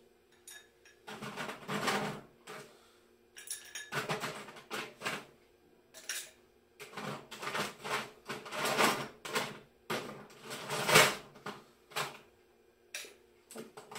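Ice cubes clinking and clattering as they are dropped into a tall glass, in several bursts, the loudest near the end.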